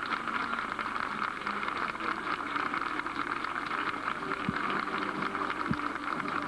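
Steady crackling hiss of rain falling.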